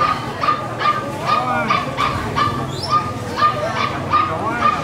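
An animal calling over and over in short, steady-pitched notes, about two a second, with faint voices underneath.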